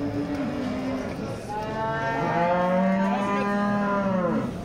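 Young cattle mooing: a short low moo at the start, then a long drawn-out moo from about a second and a half in that falls in pitch as it ends.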